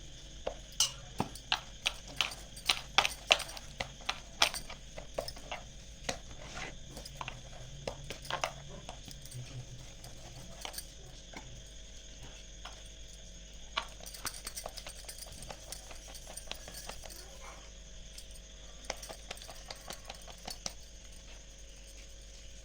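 Hands patting and slapping jowar bhakri dough by hand: a quick run of sharp pats that thins out to scattered taps after about five seconds.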